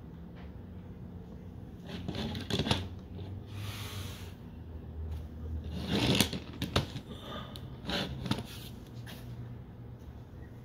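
Plastic toy figures being handled and turned around on a tabletop: a few short scrapes and knocks of plastic against the surface, the loudest about six seconds in.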